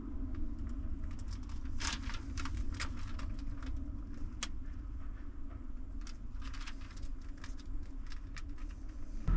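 Scattered light clicks and taps of mosaic tile sheets being pressed and fitted onto a wall by hand, over a steady low rumble.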